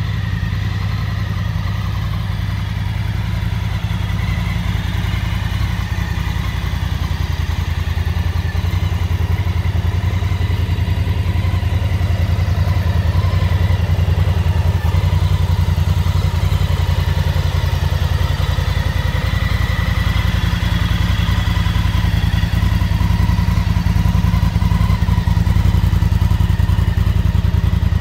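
Honda CRF1000L Africa Twin's 998 cc 270-degree parallel-twin engine idling steadily.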